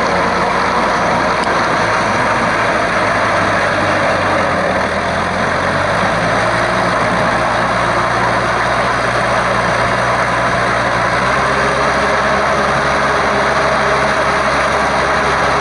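Four-cylinder diesel engine of a Shibaura V52F tractor running steadily while it pulls a rotary tiller through flooded paddy mud, the tiller's churning adding a dense rushing noise. The engine note shifts slightly about six seconds in and again near eleven seconds.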